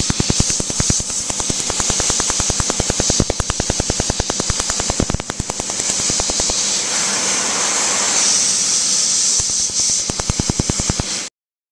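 Tattoo-removal laser firing pulses into the skin, an even train of sharp snaps at about ten a second, over a steady hiss. The snapping pauses briefly about five seconds in, then resumes, and everything cuts off suddenly near the end.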